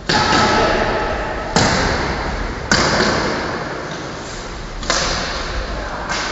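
Floorball play in a large gym: a handful of sharp cracks a second or two apart, from sticks striking the plastic ball and the ball hitting hard surfaces, each leaving a long echo over the general noise of play.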